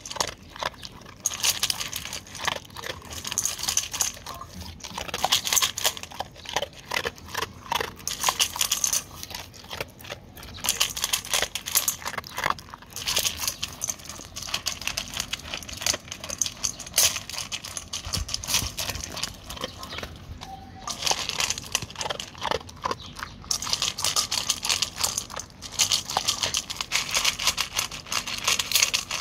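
A dog crunching dry kibble from a stainless steel bowl, the pieces clicking and rattling against the metal. The crunching comes in bursts of mouthfuls with short pauses between them.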